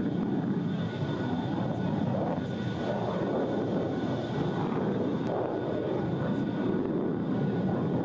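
Kalibr cruise missile in flight, its engine giving a steady noise that holds without a break.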